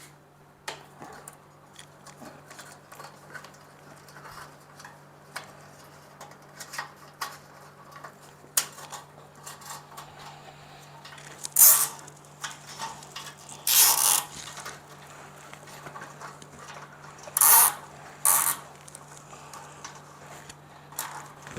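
Plastic cable ties being pulled tight around wiring, each making a short ratcheting zip. There are four louder zips in the second half, amid small clicks from handling the wires and ties.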